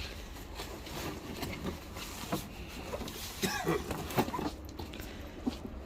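Scattered light knocks and scrapes of scrap wood being handled, over a low steady rumble.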